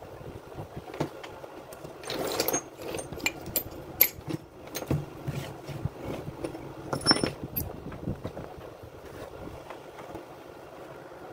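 Handling noise: scattered clicks and knocks, with a short rustling burst about two seconds in, as an electric chainsaw is moved about on a concrete floor. Its motor is not running.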